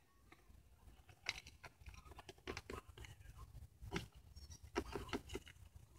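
Faint, scattered light taps and clicks of small plastic Littlest Pet Shop figures being hopped along a hard floor by hand.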